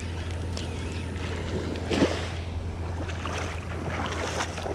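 Wind on the microphone and small waves washing over the sand at the water's edge, with a single knock about two seconds in.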